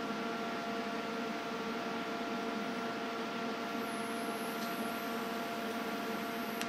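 TIG welder running while welding a 304 stainless exhaust pipe to a catalytic converter: a steady electrical hum with a hiss over it. A faint high whine joins about halfway through and cuts off suddenly near the end.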